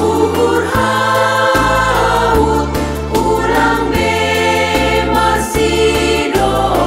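Women's choir singing a church hymn in harmony, over an accompaniment whose bass notes change every second or so.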